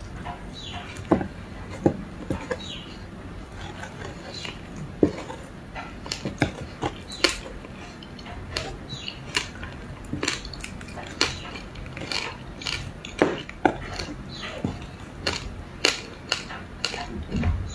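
Ice being bitten and chewed: a person crunches through a block of matcha-powdered ice with passion fruit, giving many sharp, irregular cracks and crunches.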